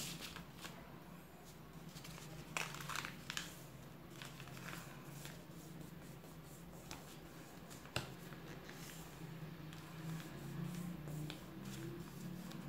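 A sheet of paper rustling and being creased by hand as it is folded, with the loudest crinkling about two and a half to three seconds in and a single sharp tap near eight seconds.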